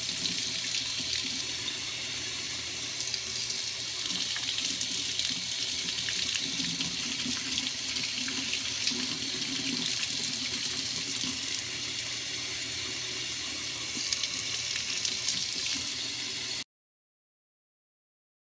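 Tap water running into a sink and splashing over fingers and a small metal vape-tank part being rinsed under the stream; it cuts off suddenly near the end.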